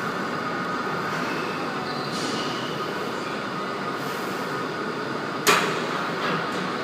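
Steady background noise of a gym floor, with one sharp knock about five and a half seconds in.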